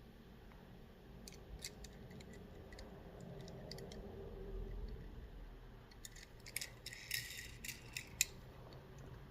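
Toy car packaging being handled: scattered light clicks and taps, with a brief scratchy plastic rustle about seven seconds in.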